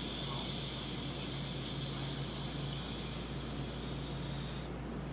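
Cannabis concentrate sizzling on the hot nail of a glass dab rig as it is inhaled: a steady hiss that cuts off suddenly near the end.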